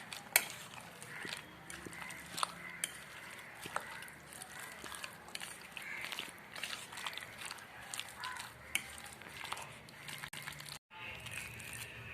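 Hands mixing a damp dough of semolina (rava), mashed potato and chopped onion in a bowl: soft squishing and crumbling with scattered light clicks.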